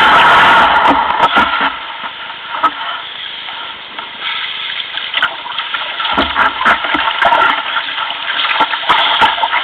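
Water splashing and lapping around a sea kayak as it is paddled, with irregular short splashes over a steady rush of water noise; a louder rush in the first second and a half.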